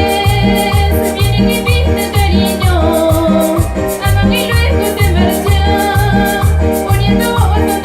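Latin American dance music with a steady bass beat about twice a second, percussion and a singing voice.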